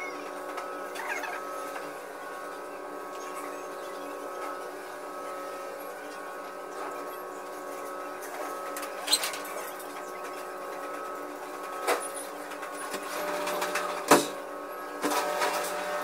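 A steady mechanical hum made of several constant tones, broken by a few sharp knocks about nine, twelve and fourteen seconds in, the last the loudest.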